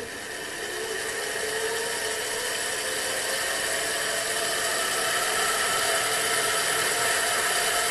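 7x12 mini lathe's change-gear train running, a steel 80-tooth gear meshing with nylon gears: a steady mechanical whir with a gear whine that rises in pitch and grows louder over the first couple of seconds, then holds. With the mesh freshly adjusted, the gears run pretty quiet.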